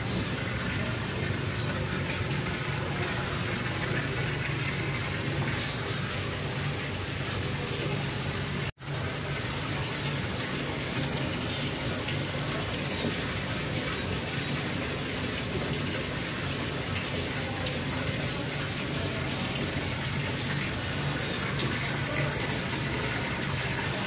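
Water splashing steadily down an artificial rock waterfall fountain, a continuous rushing hiss. The sound drops out completely for a split second about nine seconds in.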